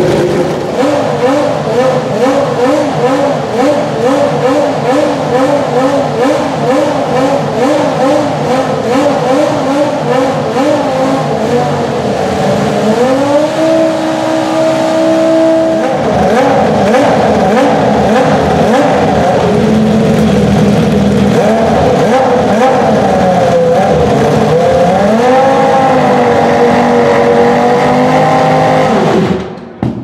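Williams FW14 Formula 1 car's Renault V10 running on warm-up in the garage, its revs rising and falling in a steady rhythm at first. It is then twice held at higher revs with uneven throttle blips between. Near the end the revs fall sharply away.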